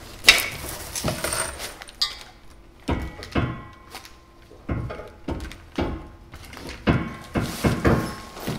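A steel trailer hitch clanking and knocking against the vehicle frame and floor jack as it is lifted and shifted into position. The knocks come irregularly, some with a short metallic ring after them, and the loudest comes right at the start.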